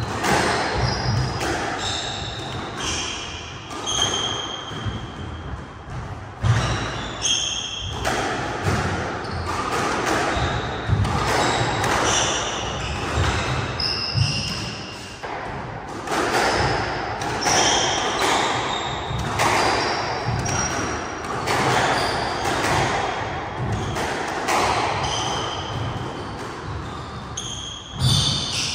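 A squash rally: the ball striking rackets and the court walls again and again, with short high squeaks of court shoes on the wooden floor in between.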